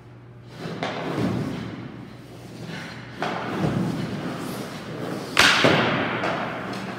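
Hockey skates and goalie pads scraping and sliding on rink ice in three swells, with one sharp crack of a puck being hit about five and a half seconds in, the loudest sound, ringing off in the rink.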